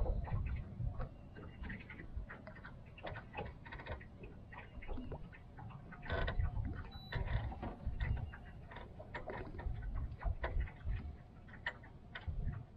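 Small waves lapping against an aluminum boat hull, heard as irregular light clicks and slaps, with the low rumble of wind on the microphone coming and going.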